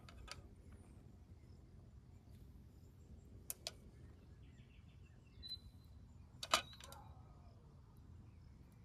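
Metal kebab skewers clicking and clinking against a metal tray and each other as tomatoes are threaded on: a few sharp clicks, a pair about three and a half seconds in and the loudest about six and a half seconds in, ringing briefly. A steady low hum lies under them.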